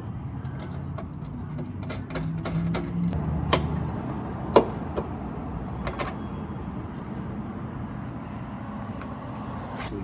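Irregular clicks and taps of a small wrench on a bolt as a side-skirt fastener is tightened by hand. They are thickest in the middle, with the sharpest click a little over four seconds in. A steady low hum runs underneath.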